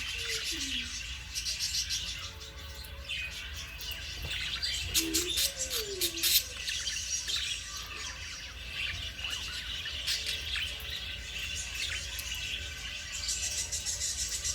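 Budgerigars chattering: a continuous run of high chirps and twitters throughout.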